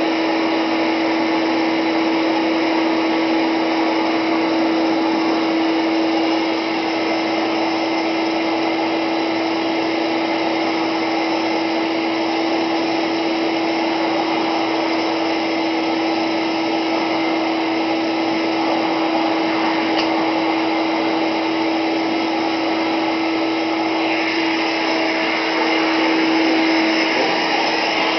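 Vintage Hoover Slimline canister vacuum cleaner running, its motor giving a steady hum under the rush of air. It gets a little louder a few seconds before the end.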